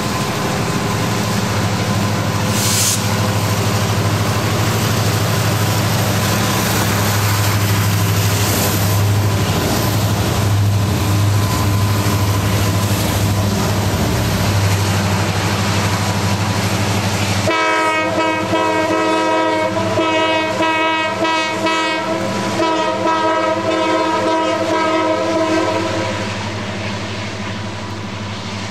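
Norfolk Southern diesel helper locomotives passing, their engines droning low. About two-thirds of the way in, a locomotive air horn sounds a chord in several long blasts lasting about eight seconds.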